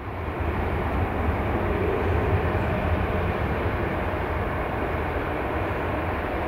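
Airbus A320-211's CFM56 jet engines heard from far off on final approach: a steady low roar.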